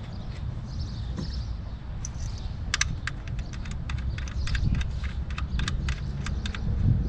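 A run of quick, irregular small clicks and rattles from hand tools and parts being worked at the engine's ignition coils, several a second through the middle of the stretch, over a steady low rumble.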